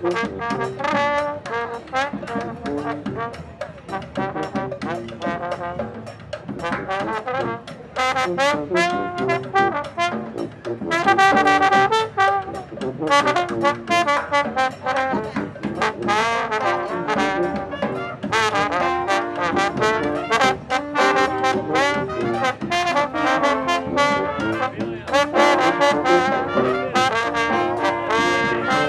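Street brass band playing, with trombones and trumpets carrying the tune over a steady beat; the music swells louder several seconds in.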